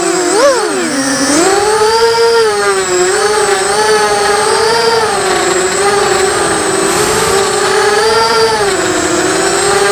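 Quadcopter's T-Motor MN2206 brushless motors spinning 5-inch DAL 5045 bullnose props, whining on board. The pitch wavers up and down with the throttle, with a quick dip and sharp rise and fall about half a second in.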